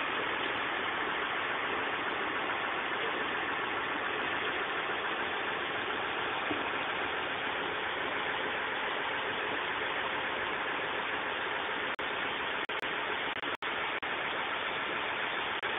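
Concrete pump truck running, a steady, even machine noise with no distinct beat or tone, broken by a few brief dropouts near the end.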